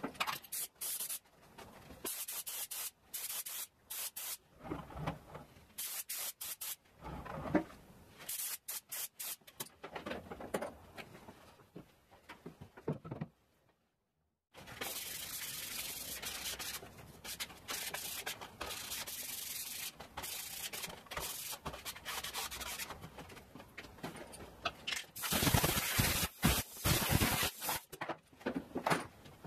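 Repeated short bursts of hissing spray from a finish sprayer coating wooden box parts, with a longer steady spray in the second half, broken once by about a second of silence near the middle.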